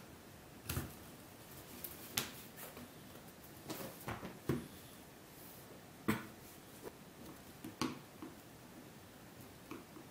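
Quiet handling of cut leather pieces on a cutting mat: a series of light, irregular taps and knocks as the pieces are moved and set down.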